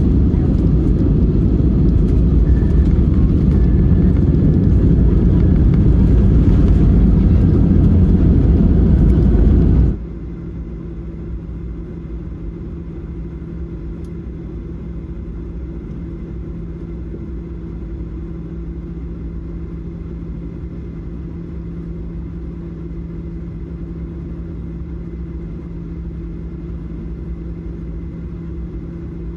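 Airbus A320 cabin noise: a loud, steady rumble for about the first ten seconds, then a sudden cut to a quieter, even engine drone with a steady hum.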